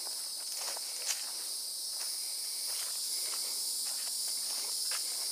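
A steady, high-pitched chorus of insects, with footsteps at walking pace on a sandy dirt trail.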